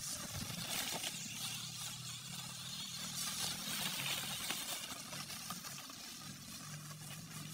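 Small electric motor of a toy RC climbing car running as it drives through grass and dry leaves, with a steady rustling and crackling from its tyres.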